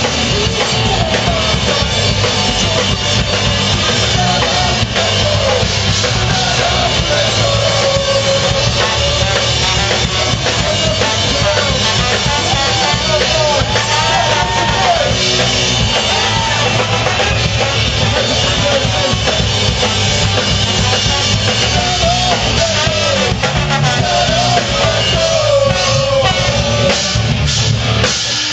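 Live rock band with a horn section playing loud and continuously: guitars and drum kit, with trombone and saxophone carrying melody lines, recorded close up on stage.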